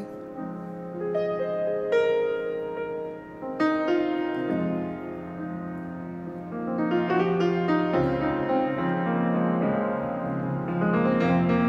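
Solo grand piano playing an instrumental passage: chords struck every second or two and left to ring out.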